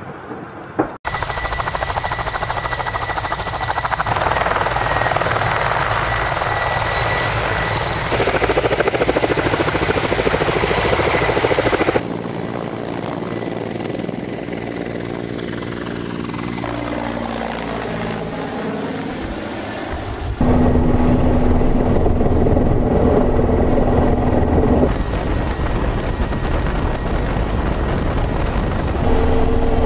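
Mi-24 attack helicopters' rotor and turbine noise across several edited shots. A low pass by a pair of them, their pitch falling as they go by, is followed by steady rotor and turbine noise heard on board.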